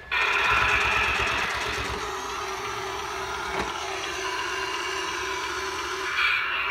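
Battery toy CAT forklift's built-in engine sound effect from its small speaker: a steady, pulsing engine-idle rumble that cuts in suddenly when its button is pressed.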